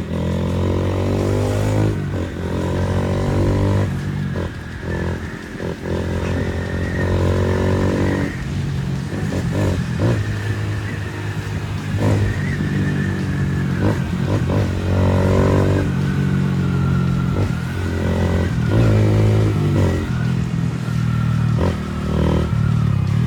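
Honda Fan 160's single-cylinder four-stroke engine running through a loud aftermarket Fortuna exhaust while riding, the revs climbing and falling again and again as the rider accelerates and changes gear.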